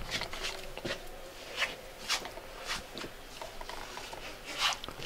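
Soft rustles and light scuffs, a few short ones spread irregularly, from the camera operator moving and handling the camera inside a small camper van interior.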